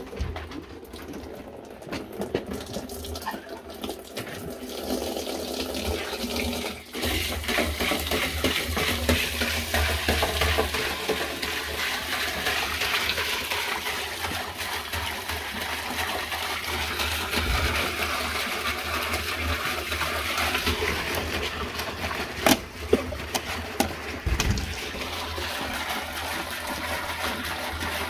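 Glacial acetic acid pouring in a steady stream from a plastic jerrycan into an empty plastic drum, splashing on the drum's bottom. There is a brief break about a quarter of the way in, and a couple of sharp knocks about three quarters of the way through.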